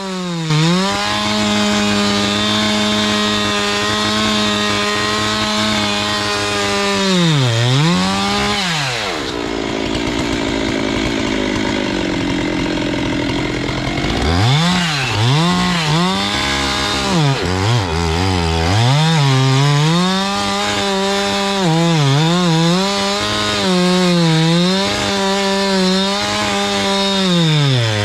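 Husqvarna 390XP two-stroke chainsaw with a 3-foot bar running at full throttle in a cut through a thick willow trunk, its pitch dipping again and again as the chain loads up. About nine seconds in it bogs down hard for about five seconds, then revs back up. The owner suspects the saw struggles because wet chips are not clearing from deep in the cut.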